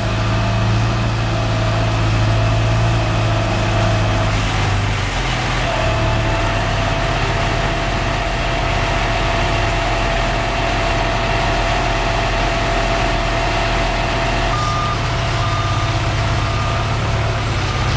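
International 4700 bucket truck's engine running steadily, with a steady whine over it that shifts in pitch about five seconds in. Near the end a series of short beeps starts.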